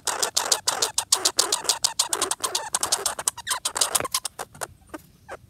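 Red squirrel chewing and cracking seeds right at the microphone: a rapid run of crunching clicks, many a second, that thins out and stops near the end.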